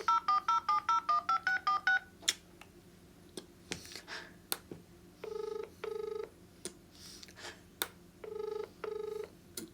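Uniden XDECT cordless phone dialing a number: a quick run of about a dozen touch-tone beeps, then after a pause the ringback tone sounding twice, each a double ring, as the call rings out.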